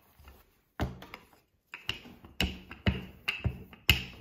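A run of sharp, short taps, about two a second, beginning about a second in.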